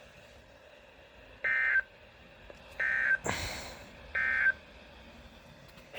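Emergency Alert System end-of-message signal: three short, identical bursts of warbling digital data tone, each about a third of a second long and spaced about a second apart, marking the end of the alert broadcast. A brief rushing noise sounds between the second and third burst.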